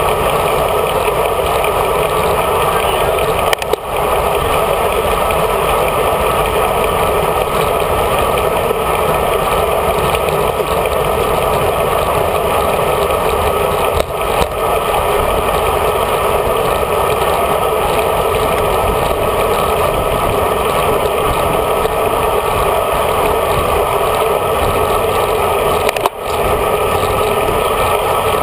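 Steady wind and road noise rushing over a handlebar-mounted GoPro Hero HD while the road bike rolls at pace in a group ride, with brief sharp dips about four, fourteen and twenty-six seconds in.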